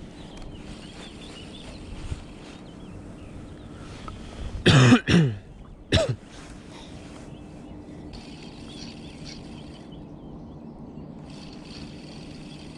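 A man coughs: two quick coughs about five seconds in and a third a second later, over a faint steady hum.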